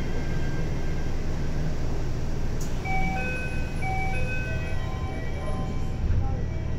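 A chime-like melody of short, held notes over the steady low rumble of a Toei 6300-series subway car.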